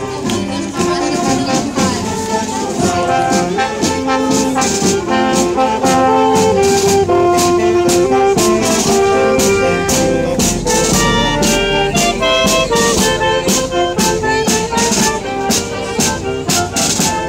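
Marching band of saxophones, trumpets and clarinets playing a lively march tune, with bass drum and snare drum keeping a steady beat. It grows louder about six seconds in.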